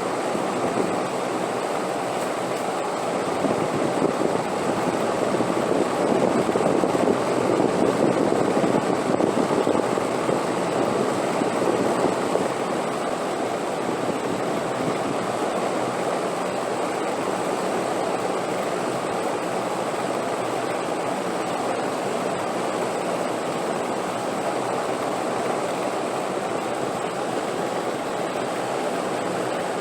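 Steady rushing wind that swells in a gust from about four to twelve seconds in, then settles back to an even blow.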